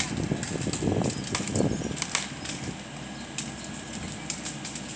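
Branches of a corkscrew willow cracking and snapping in sharp, irregular crackles as an excavator's grab crane pulls its crown down, with a heavier rustling, breaking mass of wood in the first two seconds.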